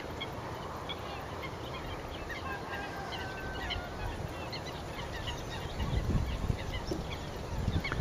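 A flock of waterbirds calling, many short, sharp calls overlapping, with a few longer level notes about three seconds in. Low rumbling wind noise on the microphone from about six seconds in.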